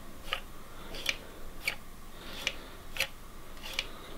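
Throttle plate and linkage of an old carburetor from a 1940 Chevy truck's six-cylinder engine being worked back and forth by hand, giving about six sharp metallic clicks, roughly one every two-thirds of a second. It still moves freely.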